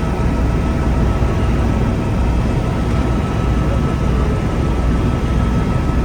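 Helicopter in flight heard from inside the cabin: a loud, steady drone of engine and rotors with a few constant whining tones above it.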